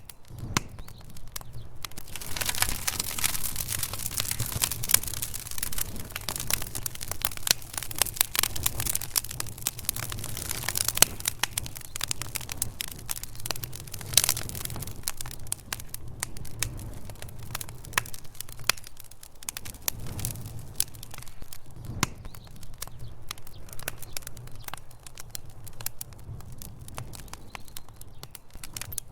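Wood fire burning in a fireplace: logs crackling with many sharp pops and snaps, thickest in the first half, over a steady low rumble.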